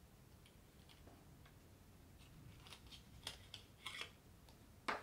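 Faint small clicks and rustles as small quadcopter parts and their packaging are handled, with a sharper click just before the end.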